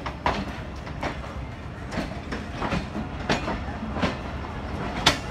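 Pakistan Railways passenger coaches rolling past at the platform edge, their wheels clacking over rail joints a little over once a second, some clacks in pairs, over a steady low rumble.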